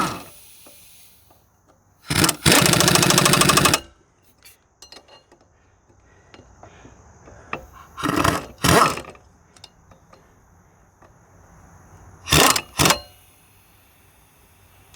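Impact wrench hammering a nut tight in bursts: one long rattling run of rapid strikes about two seconds in, then shorter bursts around eight and twelve seconds.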